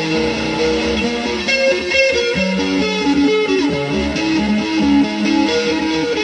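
Background music: electric guitar with bass, playing a line of changing notes at an even level.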